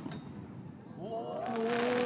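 The fading echo of a firework burst, then spectators letting out a long rising "ooh" at the fireworks, with a crackling hiss near the end.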